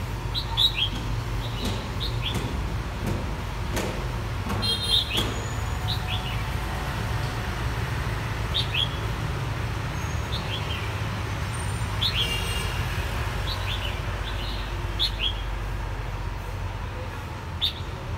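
Red-whiskered bulbul giving short, falling chirps, often in quick pairs or threes, every few seconds. A steady low rumble of city traffic runs underneath.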